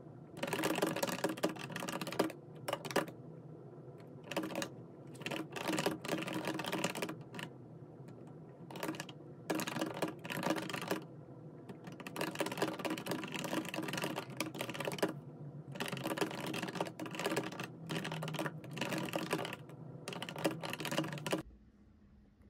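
Typing on a low-profile computer keyboard: quick runs of key clicks broken by short pauses, stopping about a second before the end.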